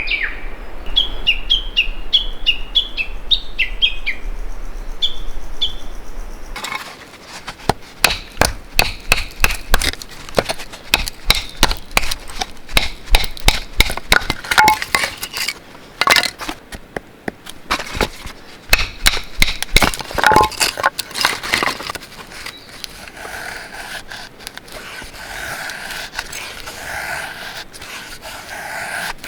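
A bird calls with a run of short falling notes, then from about seven seconds in dry wood cracks and knocks in a quick, irregular series, typical of firewood being broken up by hand. The cracking gives way to a steadier scraping near the end.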